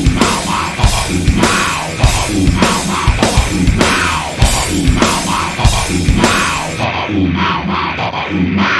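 Background rock music with a drum kit keeping a steady, driving beat; the highest sounds cut out about seven seconds in.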